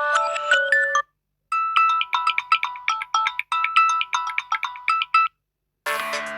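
Samsung Galaxy A04s ringtones played in turn. A short melody ends about a second in, then after a brief gap comes a bright melody of quick single notes lasting about four seconds. After another short gap, a denser electronic ringtone begins near the end.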